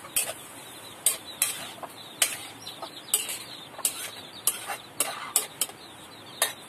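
Metal spatula clinking and scraping against a wok at irregular intervals as chopped tomatoes are stirred and sautéed in hot oil.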